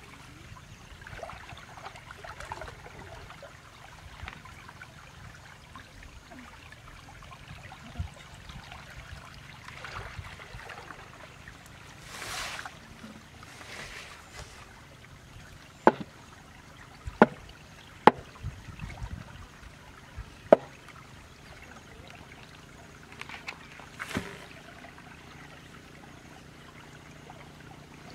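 Water splashing and trickling in a shallow muddy ditch with grass rustling. About midway come four sharp knocks, spread over some five seconds.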